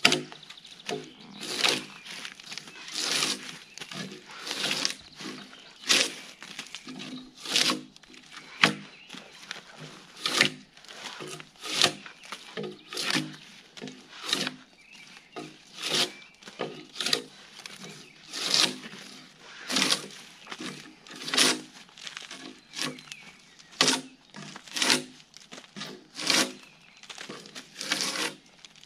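Gränsfors Bruks drawknife being pulled along a log to strip its bark: a steady run of quick scraping strokes, more than one a second, each a short rasp and tear as a strip of bark shaves away.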